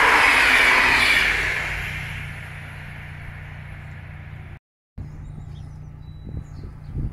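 Passenger coaches of an electric train rushing past on the rails, the noise fading away over about two seconds as the end of the train goes by. After a short dropout, a low steady hum with faint bird chirps and a few soft knocks near the end.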